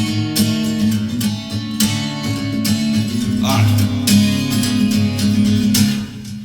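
Guitar strummed in a steady rhythm, chords ringing between sung lines of a song; the playing dies down near the end.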